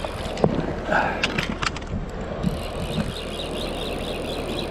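Fly reel's click-pawl ratchet running while a hooked trout is played, a fast even clicking that starts about halfway through. A few scattered knocks come before it.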